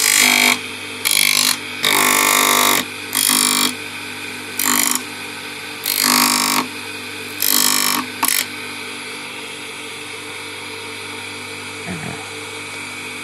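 Electric motor spinning a sanding disc, with a wooden piece pressed against it in about eight short bursts of grinding over the first eight seconds. The wood is being taken down a little so it fits. After that the motor hums on alone.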